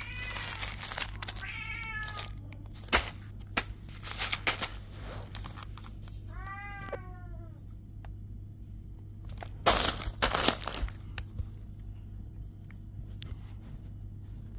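A cat meows three times, each call rising then falling in pitch: near the start, about two seconds in, and a longer one about six and a half seconds in. Clear plastic bead packets crinkle and rustle as they are handled, loudest about ten seconds in, over a steady low hum.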